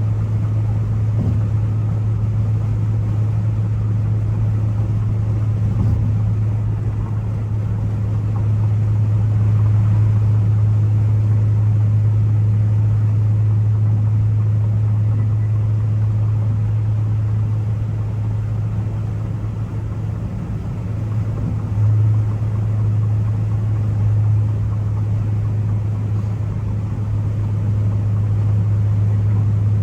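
Turbocharged Ford Focus ST engine and exhaust droning steadily at a constant cruise, heard from inside the car, with little change in revs and only slight swells about 22 and 24 seconds in.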